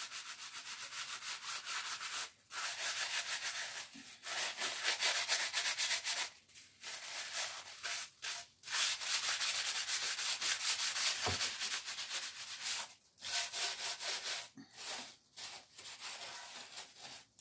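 Tissue paper rubbed rapidly back and forth over gold leaf to burnish it down, a fast run of rubbing strokes that stops briefly several times.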